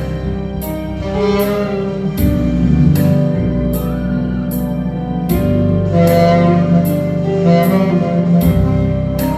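Saxophone playing a sustained melody over accompaniment with a steady cymbal beat.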